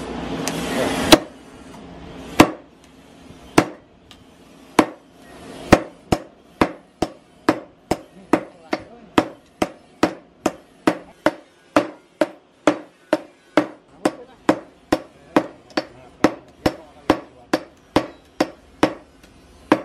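Sledgehammer blows on a glowing bearing-steel blade held in tongs on a post anvil: hand forging the blade. A brief rushing noise comes first. A few slow blows follow about a second apart, then a steady run of blows at about two a second.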